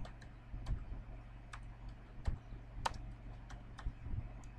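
Computer keyboard being typed on: a string of separate keystrokes at an uneven pace, typing out a short terminal command.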